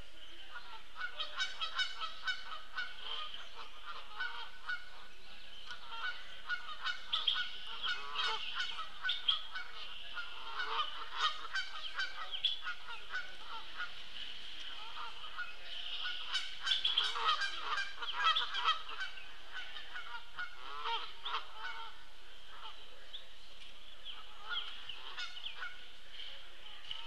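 Geese honking repeatedly in loose bouts, busiest about halfway through, over a steady high-pitched background drone.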